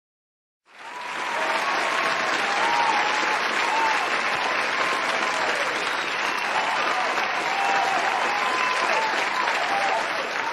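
Audience applauding, with a few voices calling out over the clapping; it starts abruptly just under a second in after silence.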